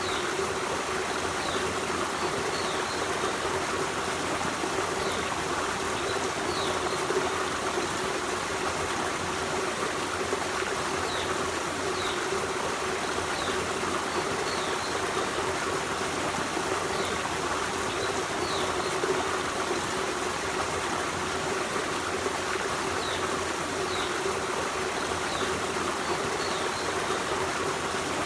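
Forest stream running steadily over rocks, an even rushing and trickling of water, with short high bird chirps every second or two.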